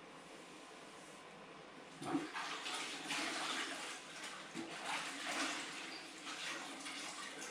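Water splashing and sloshing in uneven splashes, starting about two seconds in.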